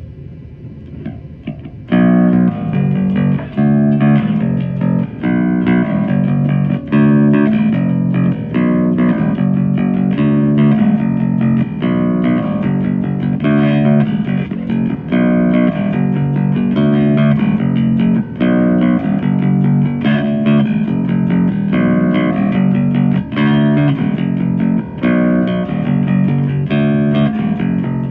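Rickenbacker-style kit electric bass guitar playing a riff of plucked notes. It starts faint, and after about two seconds the playing turns loud and runs on with short breaks between phrases.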